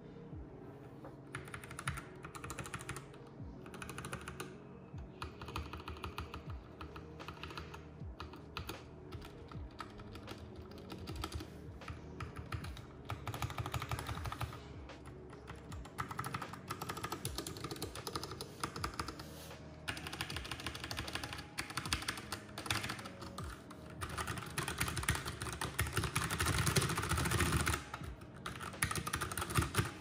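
Typing on a Keychron K6 mechanical keyboard with Gateron Brown tactile switches: a stream of irregular key clacks, getting denser and louder in fast two-handed typing in the last few seconds.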